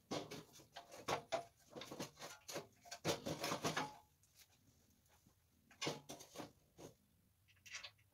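Clunks, knocks and scraping of a small engine being shifted and set onto a mini bike's engine mount, metal against metal. They come in quick clusters for the first four seconds, then a few more knocks about six seconds in and near the end.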